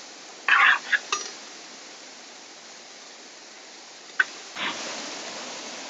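A steel ladle stirring and scraping in a large metal pot of tapioca biriyani. There are a few short scrapes about half a second in and a single sharp tap against the pot a little after four seconds, with the steady rush of a stream behind.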